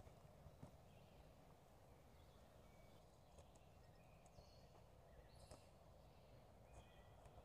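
Near silence: quiet woodland ambience with a few faint, short bird calls and occasional faint ticks, like steps on the path.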